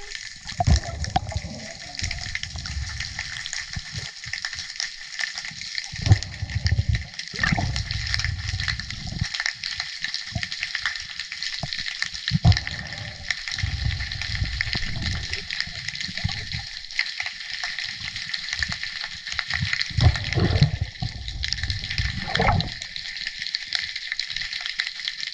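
Underwater ambience picked up through a camera housing: a steady fine crackling hiss, broken every few seconds by low rumbling rushes of water as the diver moves and handles the speared fish.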